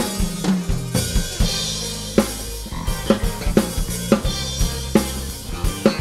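Acoustic drum kit played over a backing track with sustained low bass notes. Cymbal crashes come near the start and again about a second and a half in, then a steady groove of kick and snare with the snare landing about twice a second.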